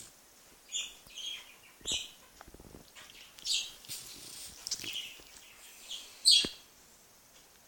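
Bulldog snoring while it sleeps on its back: a series of short, high-pitched snores about every second or so, the loudest a sharp one about six seconds in.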